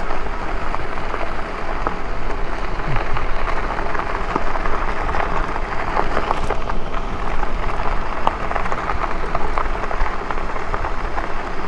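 Lectric e-bike's tyres crunching and rattling over a rocky dirt road, a dense steady run of small clicks over a low rumble.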